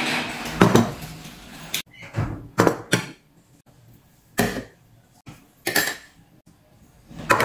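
Plates, a bowl and a spoon knocking and clinking as dishes are set down and moved on a table: a series of separate short knocks, some close together, others a second or more apart.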